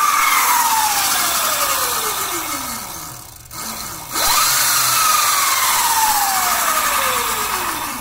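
Electric mini bike motor and chain drive whining under throttle, well short of full throttle. The pitch winds slowly down from a high whine, then jumps sharply up again about four seconds in as the throttle is twisted once more, and again falls slowly as the motor spins down.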